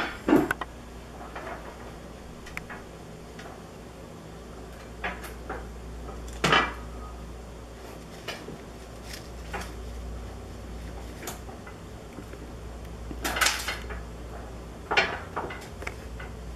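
Scattered light knocks and scrapes of a cardboard toilet-paper tube shifting on a hard plastic floor as a hedgehog moves inside it, over a steady low hum.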